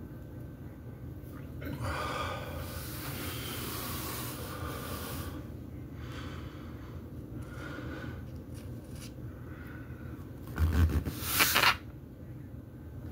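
A man breathing hard with exertion while stretching, blowing out a long, forceful exhale of about three seconds starting about two seconds in, then shorter puffs of breath. A louder rush of breath close to the microphone comes near the end.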